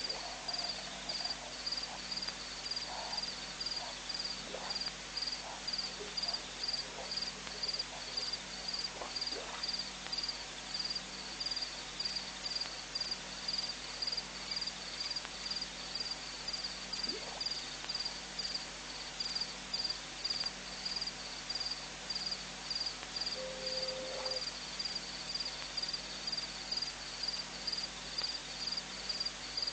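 A cricket chirping steadily, a high even pulse about three times a second. A few faint short sounds come through in the first ten seconds, and a brief lower note sounds about three quarters of the way in.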